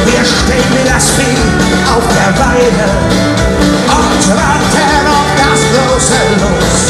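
German folk-metal band playing live and loud: electric guitars, drums and violin through the hall's PA, heard from within the audience.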